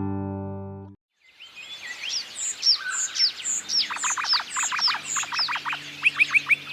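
Distorted guitar music cuts off about a second in, then noisy miners call: a quick series of sharp, downward-sweeping notes, several a second, coming faster near the end.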